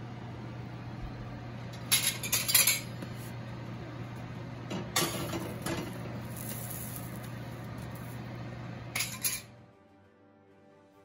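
Metal cookware clinking and clattering on a gas stovetop as pav buns are handled and toasted in a frying pan beside stainless-steel plates, in a few short bursts over a steady low hum. About nine and a half seconds in this gives way to faint music.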